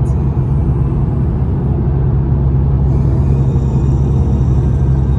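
Steady low road rumble of a car's tyres and engine heard inside the cabin while cruising at highway speed, about 73 mph.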